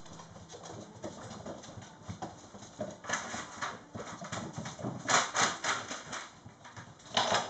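Mastiff puppies' claws and paws clicking and pattering on a hard wooden floor as they scamper about. There are a few louder bursts, about 3 seconds in, around 5 seconds in, and just before the end.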